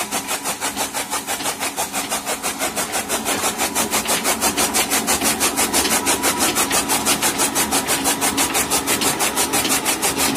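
Electric-motor-driven chaff cutter running, its flywheel blades chopping green fodder in a rapid, even rhythm of cuts over a steady hum.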